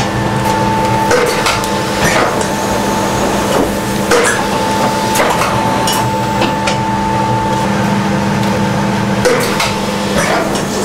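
Screen-printing press being worked: irregular knocks and clacks of the screen frame and squeegee every second or two, over a steady machine hum with a higher whine that comes and goes.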